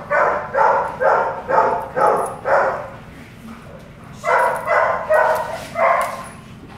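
Belgian Malinois barking loudly, about two barks a second: a run of six, a pause of over a second, then four more.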